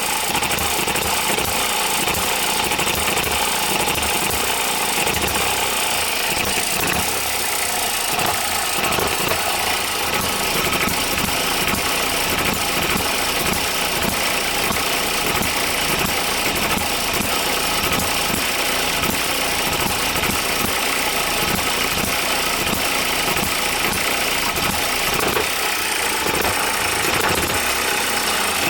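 OKMO Microcosm M92 miniature hit-and-miss engine running steadily, with a rapid, even firing clatter.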